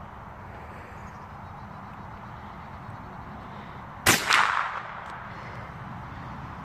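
.22 rifle fired once about four seconds in: a single sharp crack followed by a short echo that dies away within about half a second.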